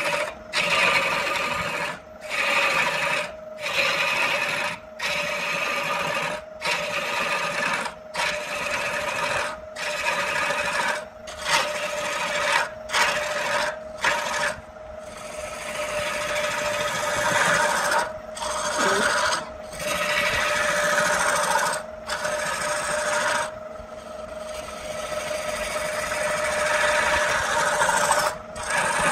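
Wood lathe motor running with a steady hum while the spinning wood is worked with a scraping, rasping sound. At first this comes in strokes of about a second each with short breaks between them; in the second half it turns into longer, unbroken passes.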